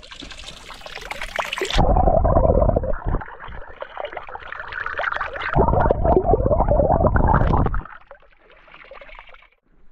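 Spring water from the mountain running from a village fountain tap and splashing, with a hissing spray at first, then two loud stretches of splashing, about two seconds in and again from about five and a half to eight seconds.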